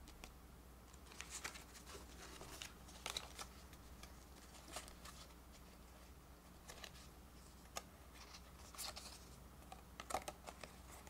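Pokémon trading cards handled and slid against one another as they are spread into a fan: soft, scattered card clicks and rustles.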